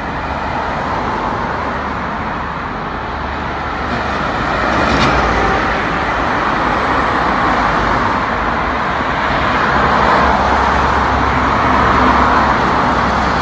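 Steady street traffic noise of cars on a busy city avenue, a continuous rumble and hiss that swells and eases slightly.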